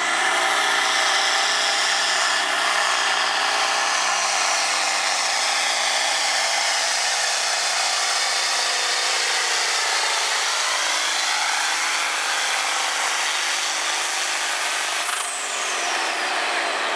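John Deere 7710 tractor's turbocharged diesel engine running flat out under heavy load, pulling a weight sled, with a steady high turbo whine over the engine. About fifteen seconds in the throttle comes off and the whine falls away.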